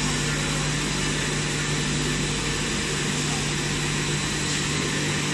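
Plastic granulating line running: the extruder and its drive give a steady mechanical drone, with a constant low hum and an even hiss over it.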